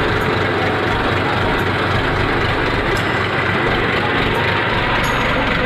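Farm tractor's diesel engine running steadily, heard close up from the driver's seat.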